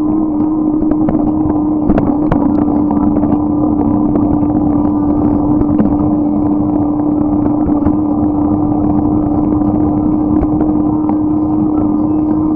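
Steady riding noise of a bike: a constant hum over a dense rumble, with scattered small clicks and rattles.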